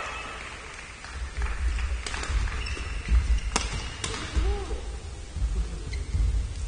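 Badminton doubles rally: sharp smacks of rackets striking the shuttlecock, the loudest about three and a half seconds in, with players' footsteps thumping on the court floor.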